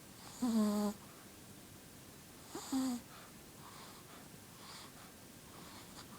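Sleeping shih tzu snoring: two short, wheezy, pitched snores about two seconds apart, the first longer and louder.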